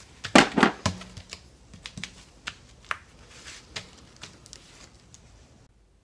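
Hand trigger spray bottle squirting soapy water onto a plugged tire tread to check for air leaks: a run of short, sharp spray strokes and clicks, the loudest a few about half a second in, then lighter ones that stop shortly before the end.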